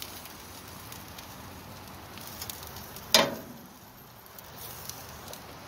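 Sauerkraut with peppers and onions sizzling faintly in a cast-iron skillet as a spatula scoops it out, with one sharp knock of the spatula against the pan about three seconds in.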